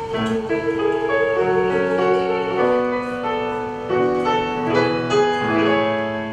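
A woman's voice holds the last sung note, "parade", with vibrato for about the first second and a half. Then a piano plays a short instrumental passage of changing chords.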